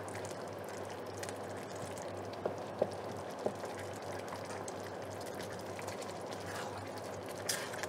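Creamy spinach and tomato sauce simmering and bubbling in a stainless steel frying pan while a wooden spoon stirs it, with a few light clicks of the spoon in the first half, over a low steady hum.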